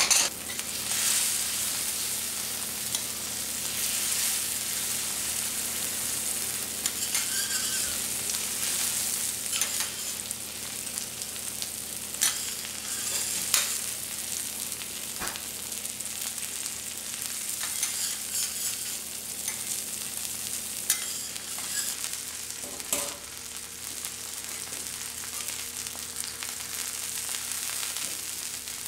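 Food sizzling on a teppanyaki hot plate, a steady hiss, with scattered sharp clicks of a metal spatula against the griddle.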